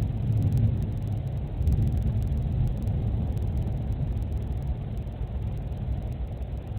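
Thunder rumbling low and rolling, swelling about half a second in and again about two seconds in, heard through a pet camera's small microphone.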